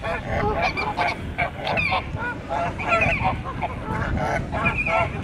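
A flock of farm poultry calling: many short, overlapping calls come several each second.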